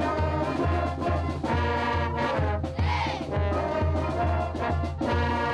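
Middle school band of brass and woodwinds (trumpets, flutes, sousaphone) playing an upbeat tune, with a bass line pulsing about twice a second.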